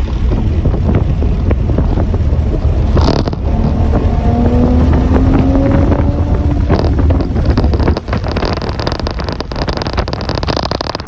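Wind buffeting the microphone over a motor engine, whose pitch rises slowly for about three seconds in the middle.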